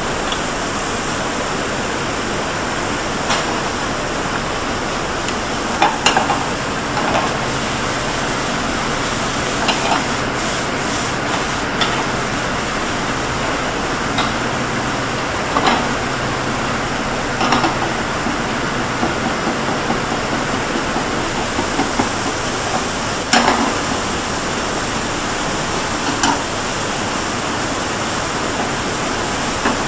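Food sizzling in frying pans on a gas range under a steady hiss, with occasional knocks and scrapes of utensils against the pans.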